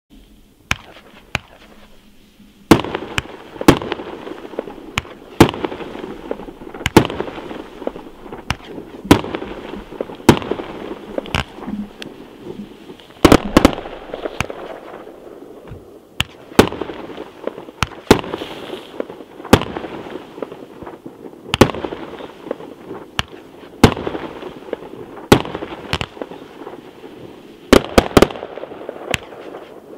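A 39-shot consumer firework cake firing: sharp bangs of shots launching and bursting about once a second, some in quick pairs, over a steady noise between them. A couple of faint pops come first, and the loud shots begin nearly three seconds in.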